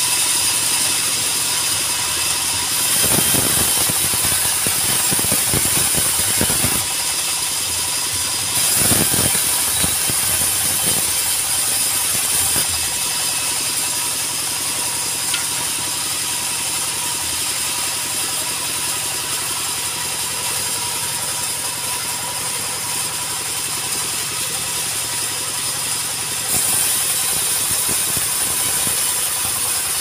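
Engine-driven bandsaw sawmill running steadily, with a high whine and the rattle of its drive and feed mechanism. Twice in the first half, for a few seconds each, it grows louder as the blade cuts through mahogany timber.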